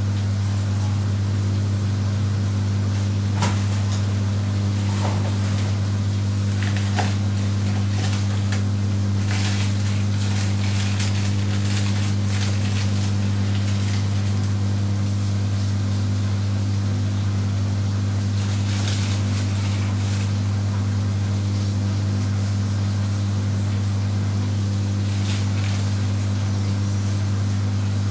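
A steady low hum, unchanging throughout, with light rustling and clicks from a seasoning packet being handled and opened.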